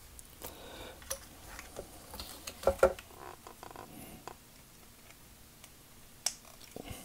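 Plastic parts of a transformable action figure (Generation Toy GT-2 Tyrant) clicking and rattling as they are folded and tabbed together by hand. Scattered small clicks, the loudest a pair near the middle.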